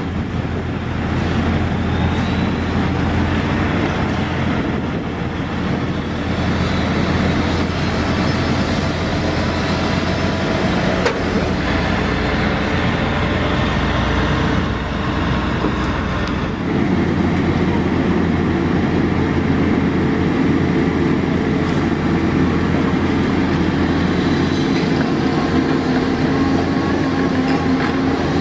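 Heavy road-paving machinery running steadily with a constant low engine drone; the mix of machine sounds shifts about 17 seconds in.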